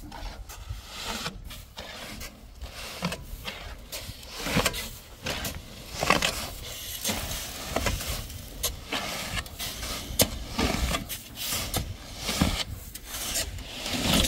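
Shovels scraping and digging into a load of gravel and tipping it off a truck bed, in repeated irregular strokes.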